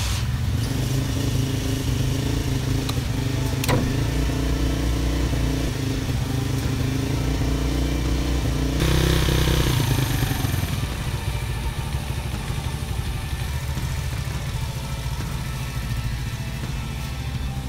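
Kayo KRZ pit bike's 140 cc single-cylinder four-stroke engine running with the rear wheel raised and spinning free, with the engine fed gas from a home-made hydrogen electrolyzer booster under test. About nine seconds in it revs up sharply, then settles back.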